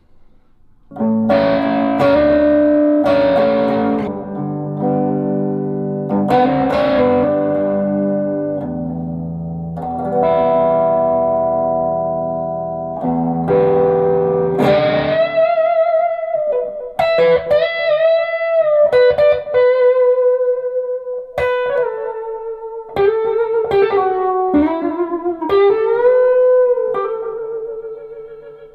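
Ivison Dakota electric guitar with Sunbear Sunbird pickups, played amplified: ringing chords for the first half, then single-note lead lines with wide vibrato and string bends.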